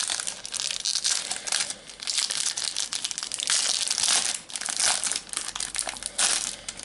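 Foil trading-card packet (a Panini Adrenalyn XL premium pack) being torn open and crinkled by hand: a dense, uneven crackling of thin foil wrapper that comes in quick surges.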